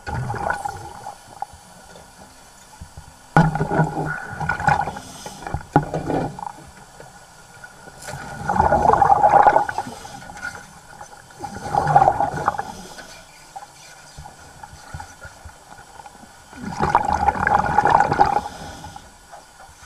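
Underwater bubbling and gurgling from a diver's breathing regulator, rushing out every few seconds with each exhalation. There is a sharp knock about three and a half seconds in.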